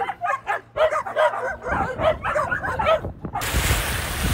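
A pack of dogs barking in quick, overlapping calls. A little over three seconds in, it cuts abruptly to a steady rushing noise.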